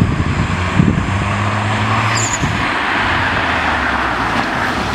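Audi A3 1.4 TFSI with a full Magnaflow exhaust driving up and passing close by: a steady engine note from about a second in, giving way after about two seconds to a steady rushing noise as the car goes past.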